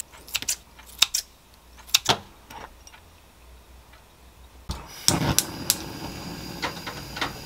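Kitchen scissors snipping through bacon slices: a few sharp snips in the first two and a half seconds. About five seconds in, a gas stove burner's steady hiss starts, with a few loud knocks from the frying pan and stove grate.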